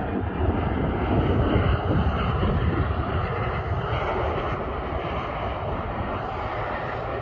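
Jet airliner's engines at low approach power as it passes on short final toward the runway: a steady rushing noise, a little louder in the first couple of seconds and then easing slightly.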